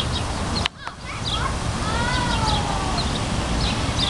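Birds chirping and calling over a steady low rumble outdoors. The sound drops out briefly just under a second in.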